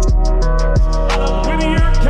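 Background music with a heavy beat: deep falling bass kicks under sustained pitched notes, with fast ticking hi-hats.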